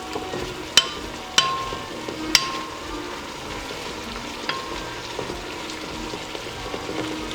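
Food sizzling steadily as it fries in oil in a pan, with several sharp, ringing metallic clinks of a utensil against the pan as the pieces are turned over.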